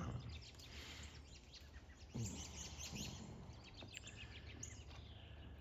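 Faint bird chirps and calls, many short high notes scattered throughout, over a steady low background noise.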